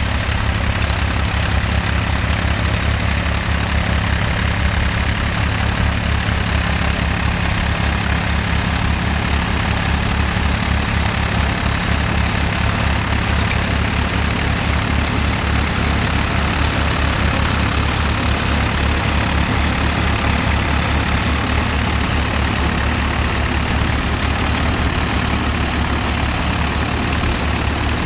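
David Brown tractor engine running steadily under load while working the soil.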